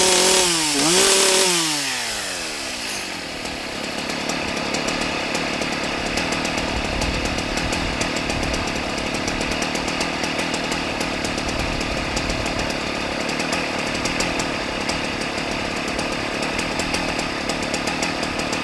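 Husqvarna 181 SE two-stroke chainsaw revved high twice and then slowing over a couple of seconds to a steady idle, which it holds for the rest of the time.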